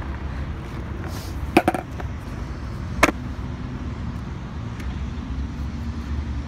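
Skateboard set down on wet concrete: a sharp double clack of the board hitting the ground about a second and a half in, and one more single clack about three seconds in, over a steady low outdoor rumble.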